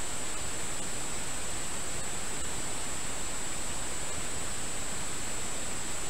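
Steady rushing of river water over shallow riffles, an even, unbroken hiss, with a thin, steady high-pitched tone held on top.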